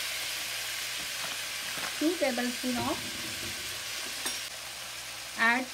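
Mixed vegetables sizzling steadily in hot oil in a wok, with a metal spatula scraping and tapping the pan a few times.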